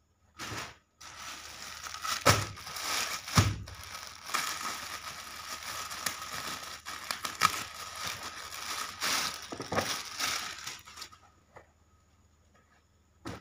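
Clear plastic packaging bag crinkling and rustling as a folded suit is handled and pulled out of it, with a couple of sharper knocks about two and three seconds in. The rustling stops about a second before the end.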